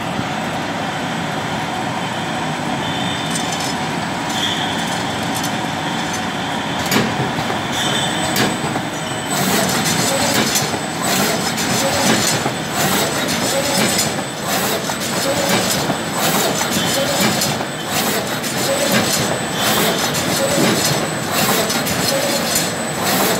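Smipack XP650ARX automatic shrink-wrapping machine running, with a steady mechanical clatter of conveyors and moving parts. From about nine seconds in, short clacks come at a regular beat of about two a second.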